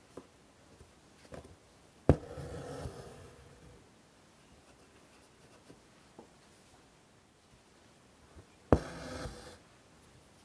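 An embroidery needle pierces fabric stretched taut in a hoop with a sharp tap, then the floss is drawn through with a rasping pull that fades over about a second. This happens twice, about six seconds apart.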